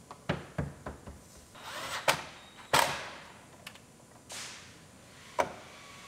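Plastic pillar trim on a 2013 Buick Enclave being pushed and snapped into place by hand: a series of sharp clicks and knocks as the clips seat, the loudest a little under three seconds in, with brief plastic rustling between them.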